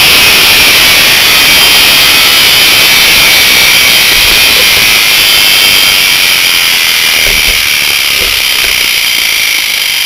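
Series-wound washing-machine universal motor, fed from a microwave oven transformer, running at extreme speed with a loud, steady high-pitched whine and brush hiss. Its carbon brushes are burning up as it runs. It grows a little quieter over the last few seconds.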